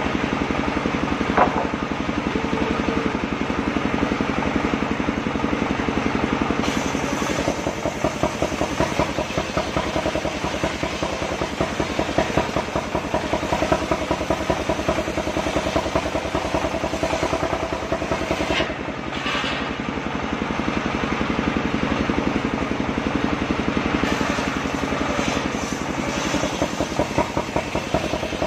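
Engine-driven circular sawmill running steadily, its blade ripping lengthwise through a waru (sea hibiscus) log, with more high-pitched cutting noise from about six seconds in.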